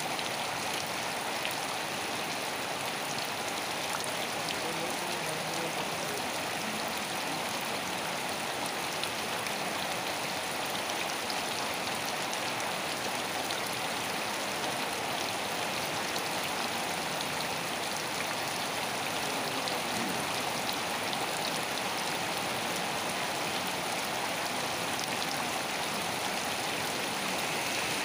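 Steady rain falling: an even, unchanging hiss.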